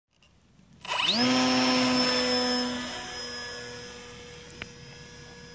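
Electric motor and propeller of a Parkzone S.E.5a radio-controlled model biplane spinning up with a quick rising whine about a second in, then holding a steady pitch as the plane is hand-launched, fading as it flies away.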